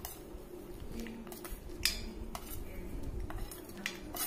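A steel spoon scraping and clinking against a small stainless-steel bowl as fried makhana and nuts are tipped out onto a steel plate. There are several sharp metallic clinks, about one a second.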